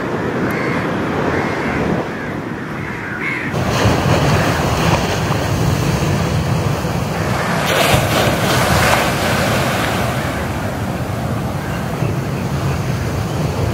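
Sea surf washing steadily onto the shore, with wind buffeting the microphone; a louder wave surges and breaks about eight seconds in.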